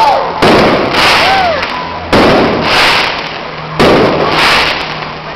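Aerial fireworks bursting overhead: three loud bangs about a second and a half apart, each followed by a fizzing crackle that fades away.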